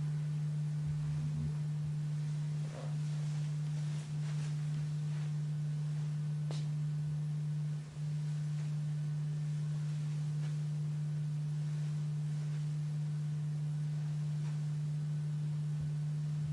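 Steady low-pitched hum, a single unchanging tone, that drops out briefly three times.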